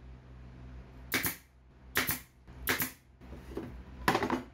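Pneumatic brad nailer firing three times, a sharp clack about once a second as brads are driven through a wooden strip into a melamine board, followed by a louder clatter near the end as the board is handled.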